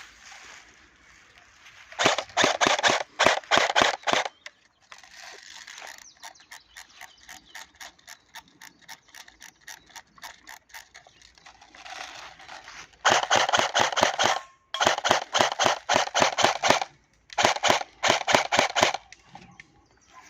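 Cybergun FAMAS F1 Evo airsoft electric gun firing on full auto in four bursts of one to two seconds, each a rapid, even clatter of the gearbox cycling. Between the first and second bursts, a fainter run of quick regular ticking lasts several seconds.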